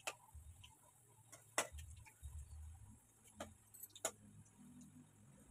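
Metal spatula clinking and scraping against an iron kadai while potato pieces are stirred: four sharp clinks spread a second or two apart, the second the loudest.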